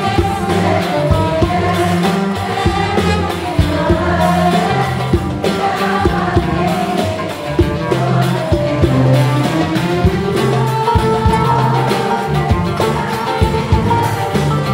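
A concert audience singing a melody together over a live Arabic orchestra, with strings carrying the tune and percussion striking a steady beat.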